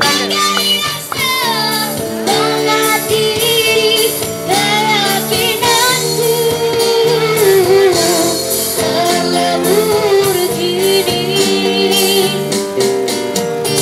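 A young girl singing a melody with vibrato through a microphone and PA speaker, backed by a live busking band of guitars and keyboard.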